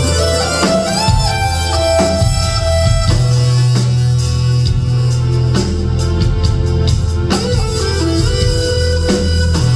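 Live instrumental music: a guitar playing held lead notes over a steady low drone, with scattered drum hits.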